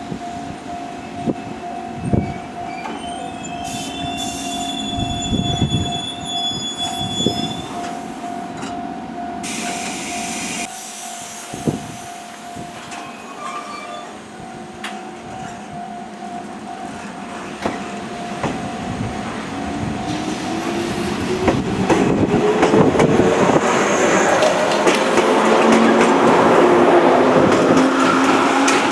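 JR West 115 series electric multiple unit standing at a station with a steady tone, a brief hiss of air about ten seconds in, then pulling away: over the last ten seconds its traction motors whine up in pitch and the train grows louder as it accelerates.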